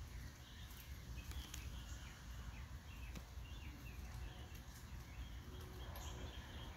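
Quiet outdoor ambience: a low steady rumble with faint, scattered short bird chirps.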